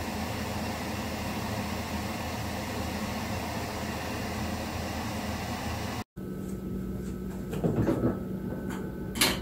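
FLUX beamo desktop laser cutter running while it cuts 3 mm wood: a steady rushing noise from its exhaust fan, with a low hum. The noise cuts off abruptly about six seconds in. A quieter hum follows, with handling sounds and a sharp click near the end.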